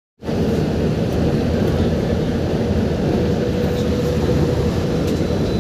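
A bus running along a road, heard from inside its cabin: a steady low rumble of engine and road noise, with a faint steady tone over it in the second half.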